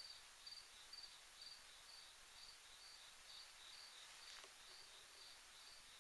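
Faint cricket chirping in a steady rhythm, about two chirps a second, with a single faint tick about four and a half seconds in.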